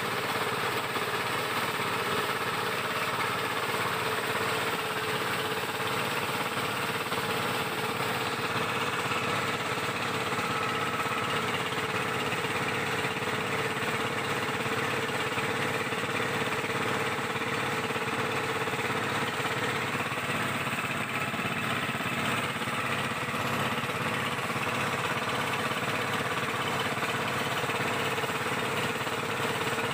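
Outrigger boat's engine running steadily with the boat under way.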